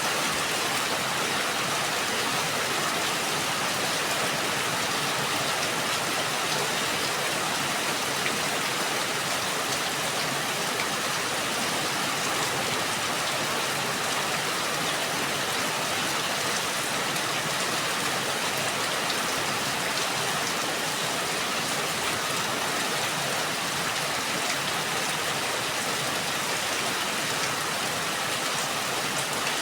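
Steady rain falling, an even hiss of many drops on surfaces.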